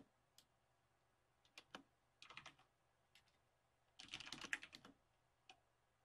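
Faint computer keyboard typing: scattered single keystrokes, then a quick run of keys about four seconds in.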